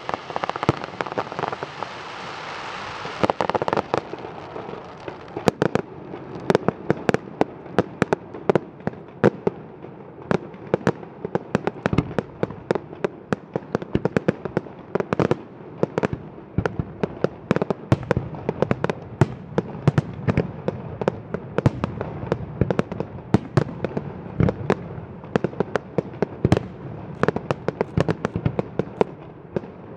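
Fireworks display: a rapid, continuous series of sharp bangs from bursting aerial shells, several a second, with a steady hiss under them for the first four seconds.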